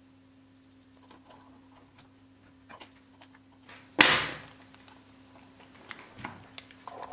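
Light clicking and handling of an old brick-type NMT phone being worked on, with one sharp knock about four seconds in and a short pitched tone near the end. A faint steady hum runs underneath.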